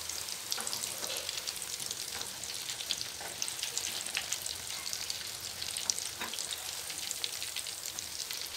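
Oil sizzling steadily with many fine crackles in a shallow frying pan, as beaten egg fries into a lacy coat around a chicken kobiraji cutlet.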